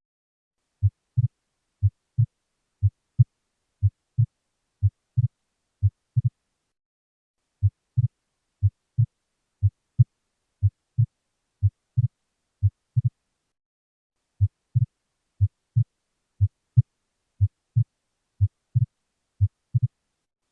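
Recorded heart sounds heard through a stethoscope: a regular lub-dub rhythm of about one beat a second, played as an example of a split second heart sound (S2). The thumps pause twice, for about a second each.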